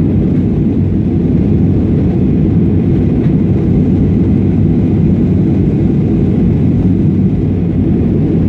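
Airliner engines and airflow making a steady, even low rumble during the climb after takeoff.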